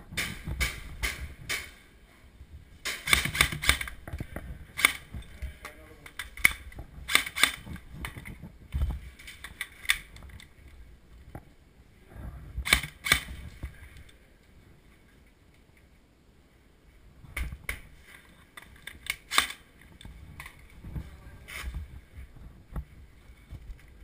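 Airsoft guns firing, sharp snapping shots in quick strings and single shots, with a lull a little past the middle.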